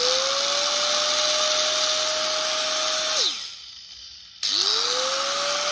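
Hitachi G10B2 100 V angle grinder running with no load: its motor whine rises as it spins up and then holds steady. About three seconds in it is switched off and its brake stops it in a fraction of a second. About a second later it is switched on again and spins back up.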